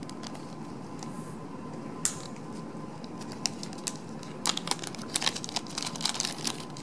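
Clear plastic packaging holding paper label strips being handled and opened: light crinkling and clicking, a few scattered ticks at first, then a busy run of crackles about four and a half seconds in. A faint steady tone hums underneath.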